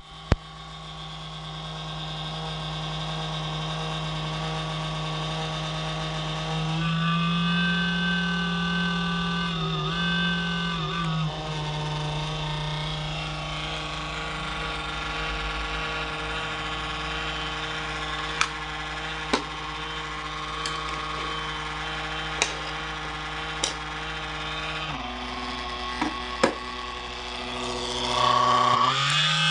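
CoolCold laptop cooling pad's fans running with a loud vibrating hum, the sign of fan vibration. The pitch of the hum steps up about a quarter of the way in, falls back, drops again later and rises near the end, and a handful of sharp clicks come in the second half.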